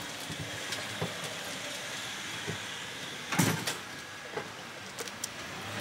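Golf cart riding along: steady running and road noise with small rattles, and one sharp knock about three and a half seconds in.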